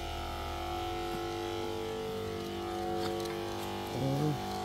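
Battery-powered knapsack sprayer's pump motor running with a steady hum. A short voice-like sound cuts in about four seconds in.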